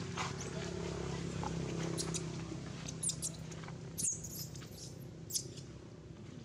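Short, very high-pitched squeaks from a baby long-tailed macaque, about half a dozen spread through, some sliding in pitch, over a low steady background hum that fades out in the first half.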